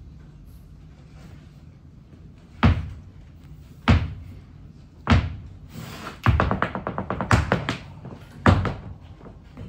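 Flamenco zapateado: dancers' shoes striking the stage floor, a quiet start and then single loud stamps about a second apart, with a fast roll of rapid heel-and-toe taps about halfway through, then more stamps.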